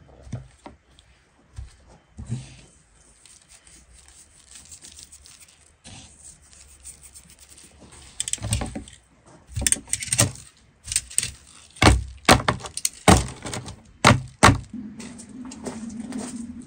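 A series of sharp knocks and cracks: a few scattered ones at first, then about a dozen loud ones in quick succession in the second half. A steady low hum comes in near the end.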